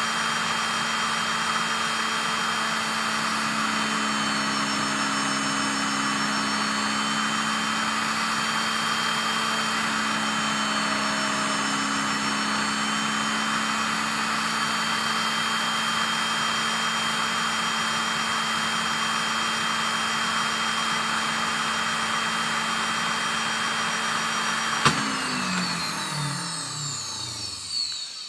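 Bench drill press motor running at a steady pitch while small holes are drilled around the edge of a small wooden disc. About 25 seconds in it is switched off with a click and spins down, its whine falling away over about three seconds.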